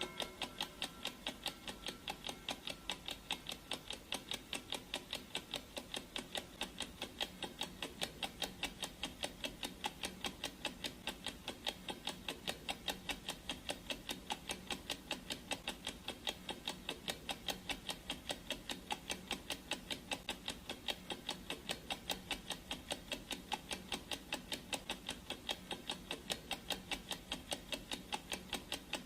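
Clock ticking sound effect: a steady, even run of ticks. The last of a ringing tone fades out in the first second.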